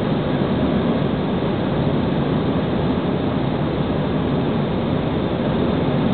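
Steady in-flight cabin noise of an airliner: an even rush of engines and airflow heard inside the cabin, strongest low down and unchanging.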